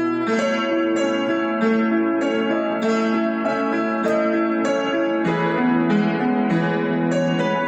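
Piano music: a melody of struck notes over a bass line, played at a moderate pace.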